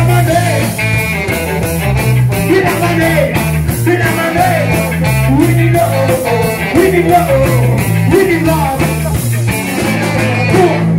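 Live band playing rock with drums, electric guitar and saxophone and trombone, a man singing over them. The drums keep an even beat and stop at the very end.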